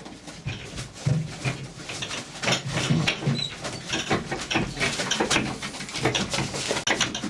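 Irish Wolfhound puppies pawing and scrabbling at the wooden boards of their pen: a steady patter of claw scratches and knocks, mixed with low puppy whimpers.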